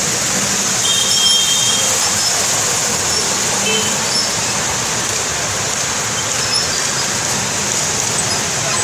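Steady wash of street traffic driving through floodwater, cars and motorcycles splashing, with a brief high tone about a second in.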